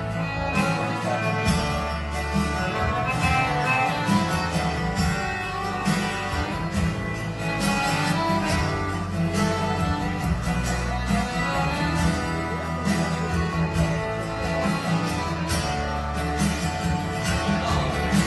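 Live acoustic guitar and accordion playing an instrumental passage of a song, with no singing.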